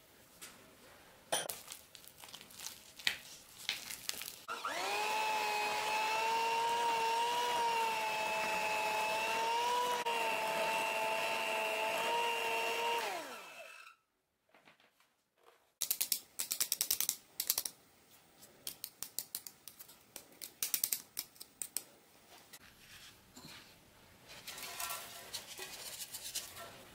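Electric hand mixer running steadily for about eight seconds as its beaters whip cake batter in a glass bowl, then winding down in pitch as it is switched off. Before it come a few light clinks of a spoon and bowl, and after a short silence a run of small taps and rustles.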